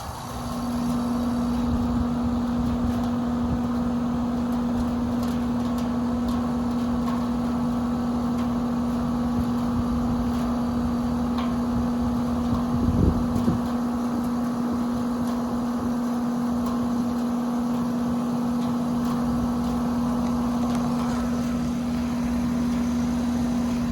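2024 Carrier 4-ton central air conditioner's outdoor unit starting up: the level climbs within the first second, then it runs with a steady, even hum. A few brief low bumps come about halfway through.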